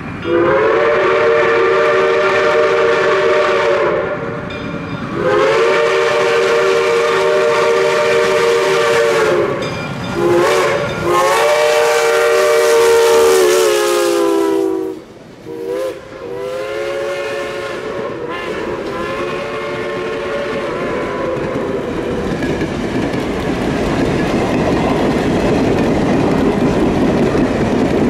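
Baldwin 4-6-2 No. 425's Lehigh Valley three-chime steam whistle blowing the grade-crossing signal, long, long, short, long, its pitch sagging slightly as the engine passes, then another short blast and a long one that fades. After that the passenger cars roll by, wheels clicking over the rail joints, louder toward the end.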